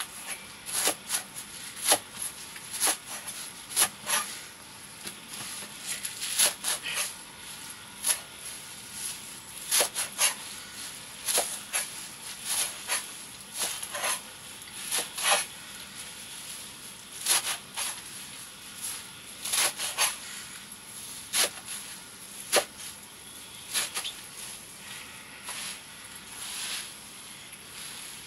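Stinging nettle being chopped with a blade: irregular sharp strikes, about one a second.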